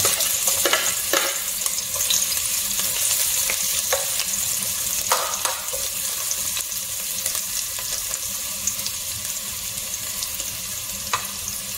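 Chopped garlic sizzling in hot oil in a pot, with a few scrapes of a metal spatula stirring it. The sizzle is loudest at first and slowly dies down.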